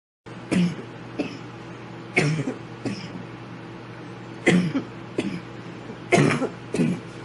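A girl coughing in four bouts of two: a strong cough, then a weaker one about half a second later, each pair a second or so apart. A steady low hum runs underneath.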